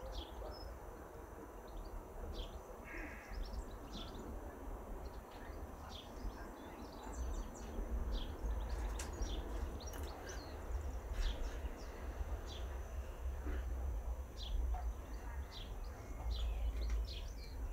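Small birds chirping in the background, many brief high calls scattered throughout, over a low, uneven rumble.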